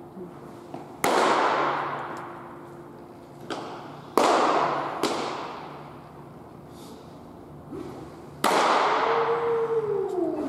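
Pitched baseballs smacking into a catcher's mitt in a bullpen: three loud pops a few seconds apart, each ringing out under the roof and netting, with fainter knocks between. A voice calls out near the end.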